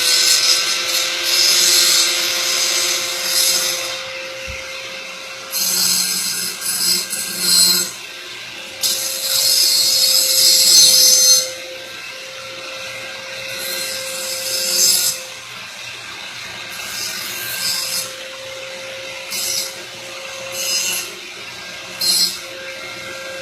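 Small electric power tool running at steady speed, with repeated spells of rasping as the abrasive is pressed against copper pipe to sand it clean for soldering. The spells are long in the first half and shorter and spaced out later.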